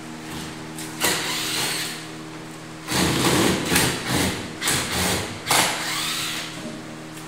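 Cordless drill running in bursts against the top of a wooden door frame, its whine rising and falling, once briefly and then in a longer stretch of short pulls on the trigger. A steady low hum runs underneath.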